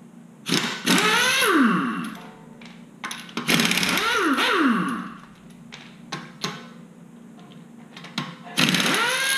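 Pneumatic impact wrench backing lug nuts off a front wheel in three bursts, each rising in pitch and then winding down, with small metallic clicks of nuts and socket between them.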